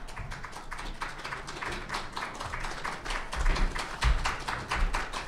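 Audience applauding, a dense, irregular patter of claps, with a few low thuds in the second half.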